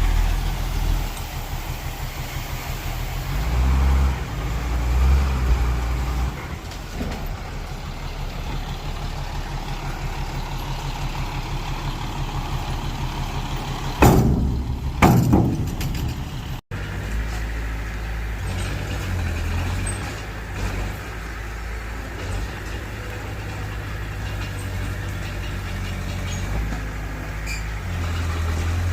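Heavy diesel engines of earthmoving machinery running with a low, pulsing note that rises in a couple of surges under load. About halfway through come two loud hissing blasts a second apart.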